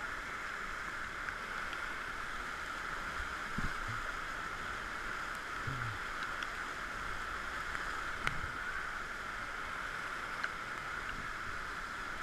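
Whitewater rapid rushing steadily, with a few faint knocks.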